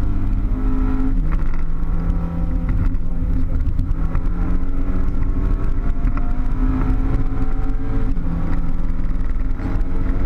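Car engine heard from inside the cabin, pulling hard on a race track: its pitch climbs steadily as it accelerates and drops sharply at gear changes about a second in and again about eight seconds in, over a constant low road rumble.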